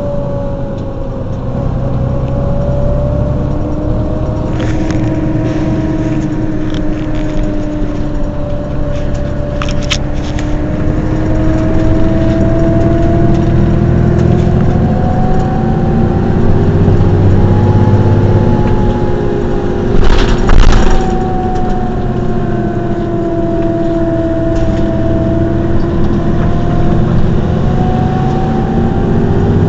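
Mercedes-Benz Citaro city bus idling at a stop: a steady engine rumble with a whine that slowly rises and falls in pitch. A loud burst of noise lasting about a second comes about twenty seconds in.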